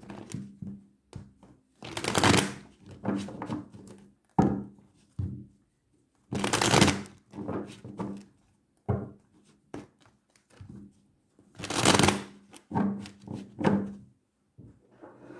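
A tarot deck being shuffled by hand: three loud shuffling passes about every five seconds, with shorter taps and rustles of the cards between them.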